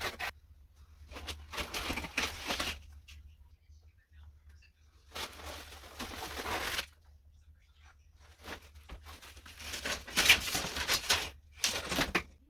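Material being torn out by hand during demolition: several ripping bursts about a second or more long, with short pauses between them, over a steady low hum.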